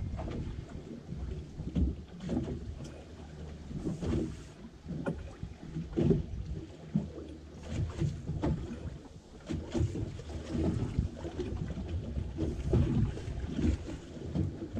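Sea water slapping and sloshing against a boat's hull in uneven surges every second or two, with wind buffeting the microphone.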